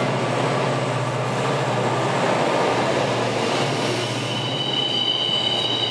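Container freight train passing close by, its locomotive drone steady and low. About three and a half seconds in, a high wheel squeal comes in and grows stronger as the loaded container wagons roll past.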